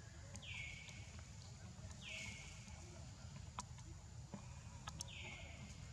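Short, high animal calls, each falling quickly in pitch and lasting about half a second, heard three times. A few faint clicks and a low rumble run under them.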